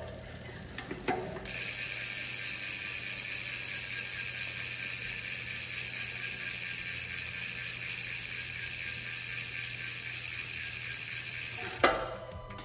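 Mountain-bike rear hub freewheeling: the pawls ratchet so fast that the clicks merge into a steady high buzz. After a few separate clicks, the buzz starts about a second and a half in and cuts off with a sharp click near the end.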